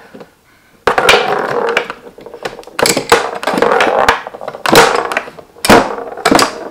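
Mini wooden tabletop foosball game in play. The rods rattle and the plastic players clack against the ball in fast, irregular runs of knocks, starting about a second in.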